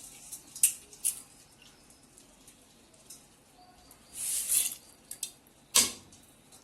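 Cookware being handled: a few sharp clicks and knocks of a pot and utensils, a short hissing rush about four seconds in, and one loud knock near the end.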